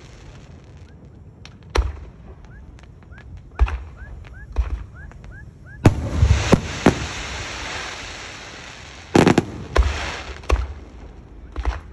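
Aerial fireworks going off: sharp single bangs every second or two, a stretch of dense crackling about halfway through, then a quick cluster of bangs a few seconds before the end.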